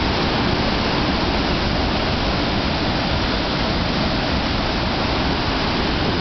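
The Coo waterfall, a steady, loud rush of falling white water that does not change.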